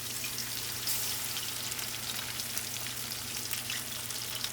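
Breaded bass fillets frying in hot canola oil in a pan, a dense, steady sizzle and crackle of popping oil. A steady low hum runs underneath.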